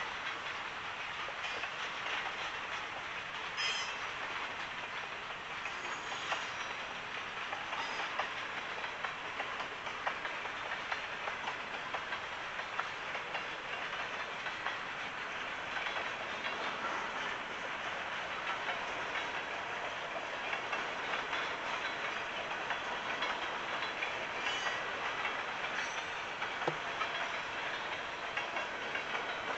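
Freight cars rolling past on steel wheels: a steady rolling noise of wheels on rail, with a few short clicks as the cars go by.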